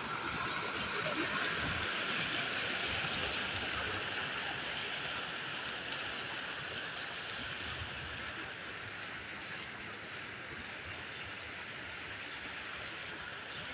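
Storm floodwater rushing and churning over a grassy edge in a steady rush, loudest in the first few seconds and easing gradually as the view moves to calmer floodwater.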